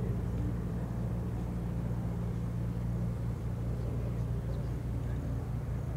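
Four Wright R-1820 Cyclone radial engines of a Boeing B-17G Flying Fortress droning steadily as the bomber flies past low, heard from the ground.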